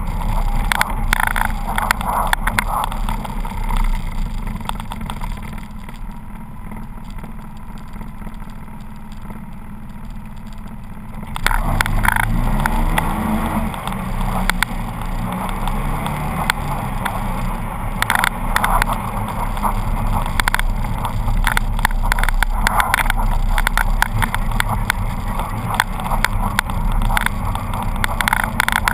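Polaris RZR 800 side-by-side's engine running on a snowy downhill track. It eases off and runs quieter for several seconds, then revs up again about halfway through with a rising pitch. Sharp knocks from the rough track run through it.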